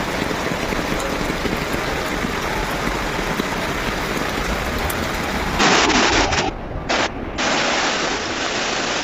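Steady noise of a heavy storm downpour and rushing floodwater. From about five and a half seconds in it turns louder and harsher, with two short dropouts.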